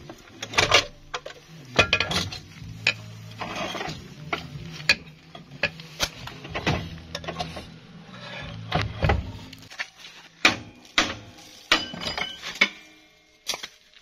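Irregular metallic clinks and knocks as a steel belt pulley and hand tools are handled and fitted onto the mixer's drive shaft. A low steady hum runs underneath and stops about ten seconds in.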